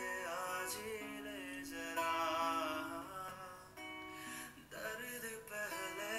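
A man singing a Hindi song while strumming an acoustic guitar.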